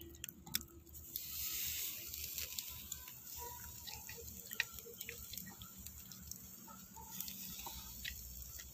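Small open fire under a grill of chicken satay skewers, crackling with scattered sharp pops and a soft hiss that is strongest for a couple of seconds about a second in.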